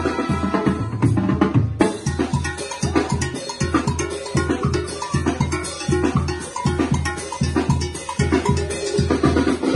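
Mexican banda music in a percussion-led passage: drums keeping a steady, even bass-drum beat under quick strikes, with the brass mostly dropped back.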